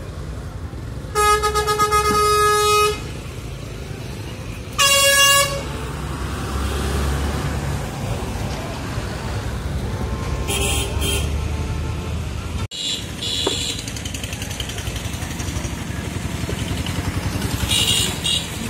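Two vehicle horn blasts over a constant street din. The first is a steady single-note honk of nearly two seconds, about a second in. The second is a shorter, higher honk around five seconds in.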